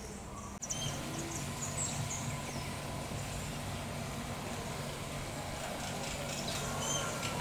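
Outdoor ambience of scattered short, high bird chirps and calls over a steady low background hum. The background changes abruptly about half a second in, as the birdsong and hum pick up.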